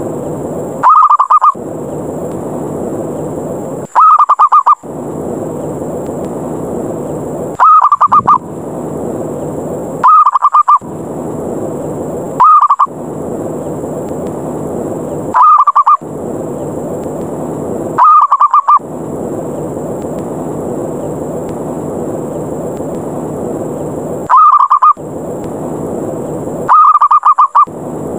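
Zebra dove (perkutut) calling in short, rapid staccato coos, nine calls each under a second, loud, with a steady background hiss between them. This is the aggressive 'ngerot' challenge call used as a lure to draw other zebra doves down.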